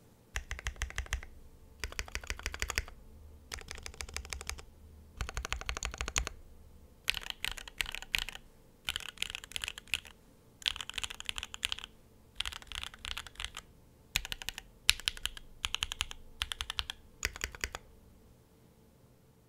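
Typing on a Think 6.5 V2 gasket-mounted keyboard with lubed Alpaca linear switches, an FR4 plate and GMK keycaps: quick runs of keystrokes in about a dozen short bursts with brief pauses between them.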